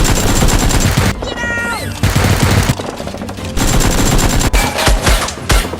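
Bursts of rapid automatic gunfire sound effects with a falling whine about a second in, turning into separate single shots near the end, over background music.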